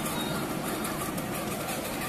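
Ride-on miniature railway train running along its track, a steady running noise of locomotive and wheels.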